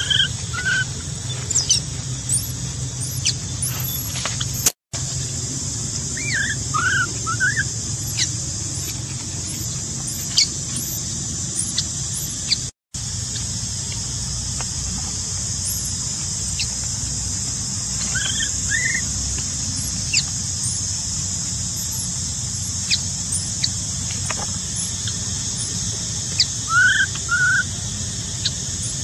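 Infant macaque stuck under a rock giving short, high squealing cries of distress in small clusters with long pauses between, over a steady high hiss.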